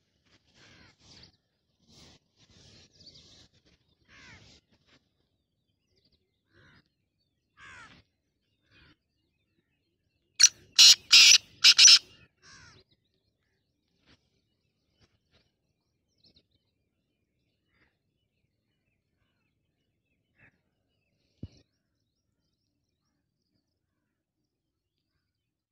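Black francolin calling: one loud, harsh call of about five grating notes around ten seconds in, with faint softer bird chirps before it. A single sharp click comes later.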